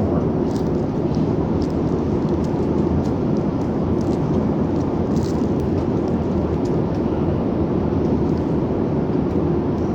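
Airliner cabin noise in cruise: a steady, even rush of engine and airflow noise, mostly low, with a few faint light ticks.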